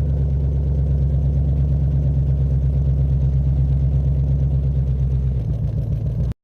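Ford Mustang 5.0 GT's V8 engine idling steadily with a slightly pulsing beat. The note drops a little about five seconds in, and the sound cuts off abruptly near the end.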